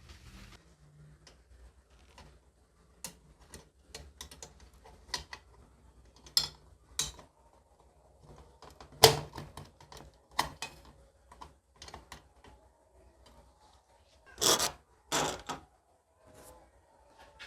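Metal lantern parts clicking and knocking as they are handled, with scattered light taps, a sharp knock about nine seconds in, and two short louder bursts near the end.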